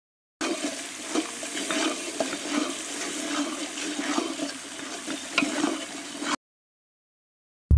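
Long ladle stirring a wet, sizzling tomato masala in a large metal pot, with frequent small scrapes and clicks. It starts about half a second in and cuts off suddenly about a second before the end.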